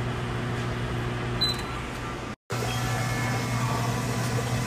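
Steady electrical hum of restaurant kitchen equipment with a fan-like hiss, picked up by a phone microphone. There is a short click about a second and a half in, and the sound drops out for a moment about halfway through.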